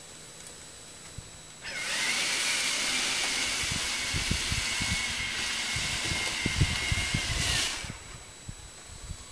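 A motor starts up about two seconds in, its whine rising to a steady high pitch over a loud hiss, with scattered knocks and thumps underneath. After about six seconds it winds down and stops.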